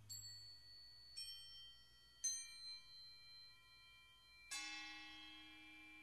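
Quiet background music of sparse struck bell-like notes. Four strikes each ring on for a while, and the last one, about four and a half seconds in, rings longest.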